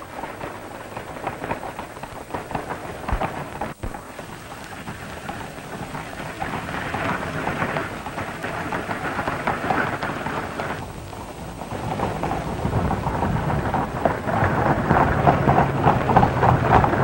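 Stormy night on a film soundtrack: wind and rain with a rumble, growing louder over the last few seconds.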